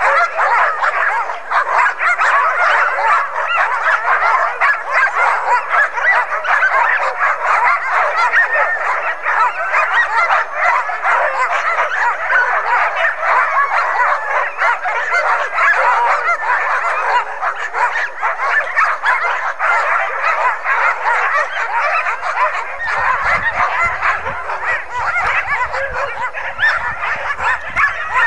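A large team of harnessed sled dogs barking and yelping all together in a constant, excited din, as a team does when it is hitched up and eager to run. A low rumble joins about 23 seconds in.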